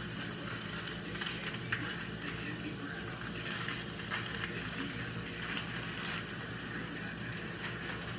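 Hamburger patty sizzling on an electric countertop grill: a steady crackling hiss with small scattered pops, over a low steady hum.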